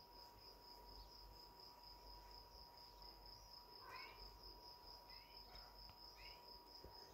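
Near silence: room tone with a faint, steady, high-pitched pulsing whine and a few short, faint chirps from about four seconds in.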